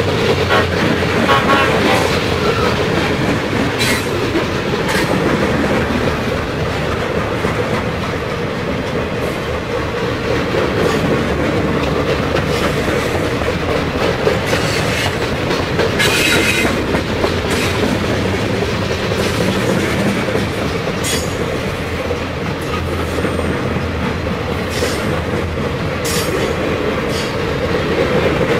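Freight cars of a long mixed freight train rolling past close by: a steady rumble of steel wheels on rail with clickety-clack over the rail joints. Occasional sharp clanks, and a brief squeal about halfway through.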